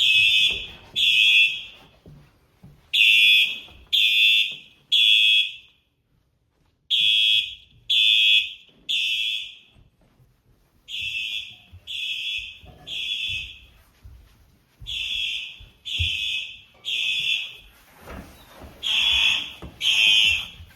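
Fire alarm horn sounding a temporal-three (Code 3) pattern driven by a fire alarm coder: three steady high blasts about a second apart, a pause of about two seconds, then three more, repeating.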